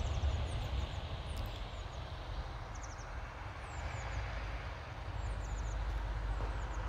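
Small birds chirping, many short high calls scattered throughout, over a steady outdoor background with a low rumble.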